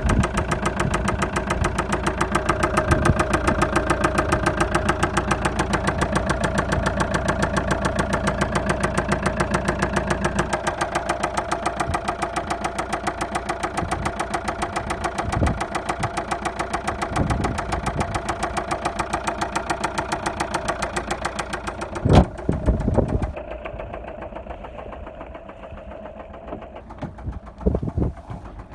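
2010 Vauxhall Insignia 2.0 CDTI (A20DTH) four-cylinder turbodiesel running with a steady, rhythmic knock, an internal engine fault that the owner puts down to possible poor maintenance or a failing oil pump. A sharp click comes about three quarters of the way through, after which the sound is quieter.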